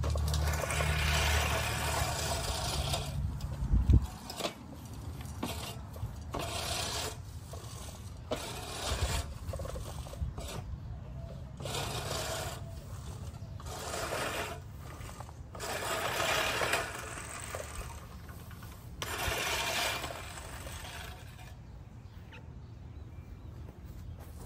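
Scotts 16-inch push reel mower cutting grass, its spinning reel blades whirring as they shear the grass, in a series of swells a second or so long as it is pushed back and forth past. The sound is quieter near the end.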